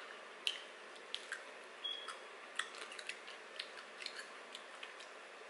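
Quiet chewing and mouth sounds of people eating fried chicken sandwiches and pickle slices, with small scattered clicks.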